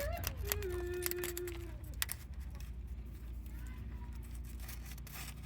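A sharp blade scraping crusted grease and diesel soot off a truck frame: a few scrapes and sharp clicks over a steady low hum, with a faint held tone about a second in.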